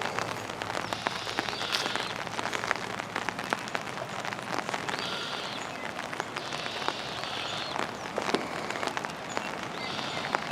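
Light drizzle pattering on an umbrella, a steady patter of small scattered ticks. Birds call several times over it in short bursts of chirping.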